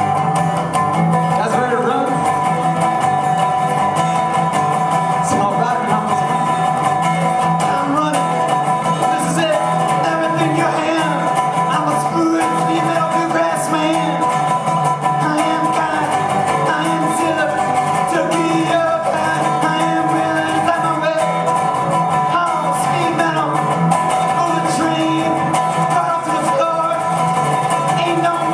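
Resonator guitar played live in a continuous instrumental passage, with wavering, gliding notes over a few steady held tones.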